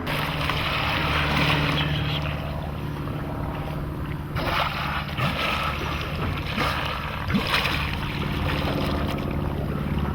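A boat's engine hums steadily while water sloshes and splashes around the hull, with wind buffeting the microphone. There are several louder splashes about halfway through.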